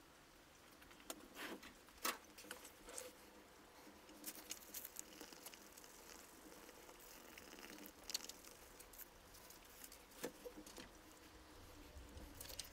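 Faint, scattered rustles and light taps of a sheet of paper being handled and smoothed by hand over an inked printing plate.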